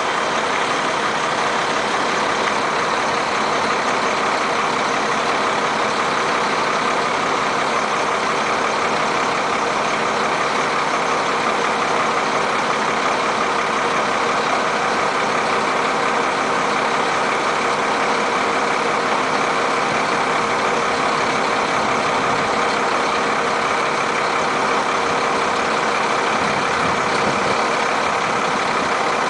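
Crane's heavy engine running steadily at an even pitch.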